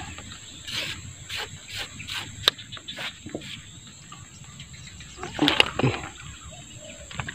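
A steady high-pitched insect drone, with a string of short rustles and taps through the first few seconds and a louder burst of rustling about five and a half seconds in.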